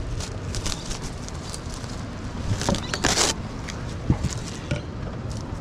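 Steady patter of heavy rain, with a few small knocks and clicks and a short louder rustle about three seconds in.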